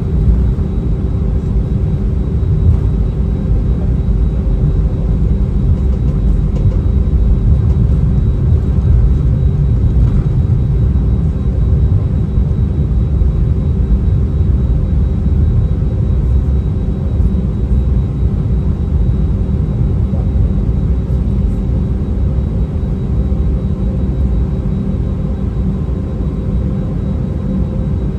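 Airbus A319 cabin noise: the jet engines and airflow make a loud, steady rumble, with a steady hum above it.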